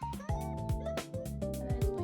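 Background music with a steady beat: held instrumental notes over regular drum hits.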